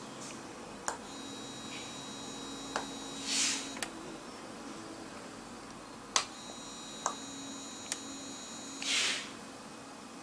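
Clicks of single-button call pagers being pressed, each followed by the SINGCALL APE6900 receiver sounding a steady high alert tone over a low buzz for about two seconds, signalling a received call. This happens twice, and each alert ends with a short hissing puff.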